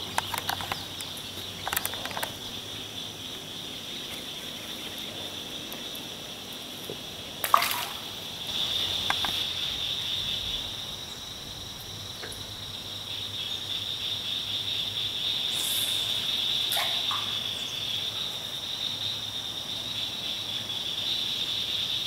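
Steady high-pitched buzz of an insect chorus, louder in the second half. A few small clicks in the first couple of seconds and one sharp knock about seven and a half seconds in.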